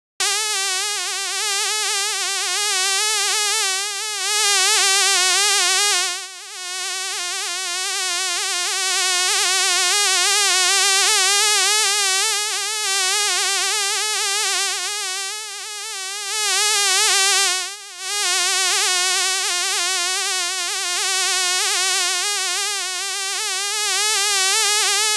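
A fly's wings buzzing continuously, the pitch wavering slightly up and down as it flies around, dipping briefly twice.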